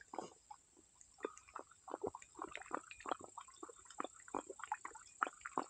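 A black leopard lapping water from a metal bowl: quick, wet laps, several a second, soft at first and coming steadily from about a second in.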